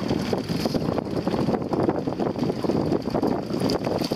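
Strong wind buffeting the microphone over choppy lake water around a small rowboat, a steady rumbling rush. Near the end a hooked pike splashes briefly at the surface beside the boat.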